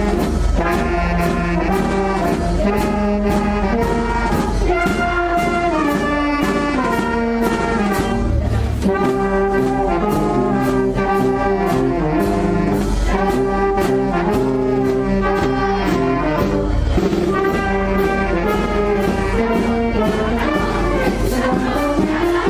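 Town wind band of euphoniums, trumpets, saxophone, clarinets and flute playing a tune with a steady beat.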